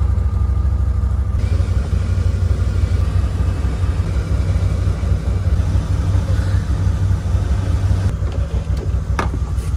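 Can-Am side-by-side's engine running at a steady idle, a loud, even low rumble heard from inside the cab.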